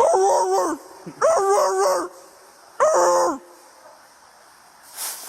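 A man imitating a police dog, giving three loud, drawn-out barks in the first three and a half seconds to scare hiding suspects into giving up.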